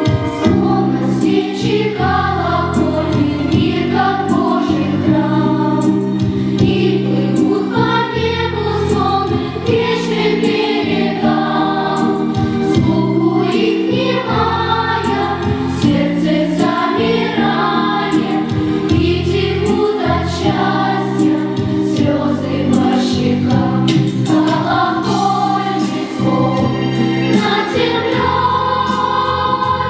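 Church choir singing, several voices together in slow, sustained lines.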